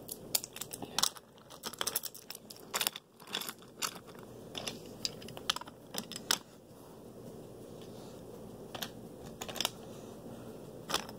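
Toy trains and coaches clicking and clattering as they are pushed by hand along wooden toy track. The sharp, irregular clicks come thickly for the first six seconds or so, then only now and then.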